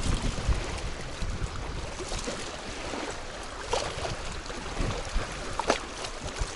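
Strong wind rushing over the microphone, with small waves lapping on the water and a few faint short clicks.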